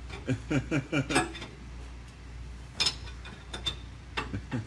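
A few sharp metallic clinks of hand tools against metal, the loudest about three seconds in, with a few lighter taps after it. There is low background talk or a chuckle in the first second.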